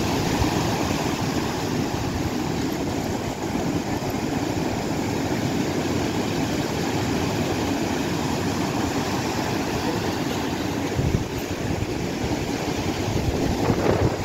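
Ocean surf breaking and washing up the beach: a steady rushing noise.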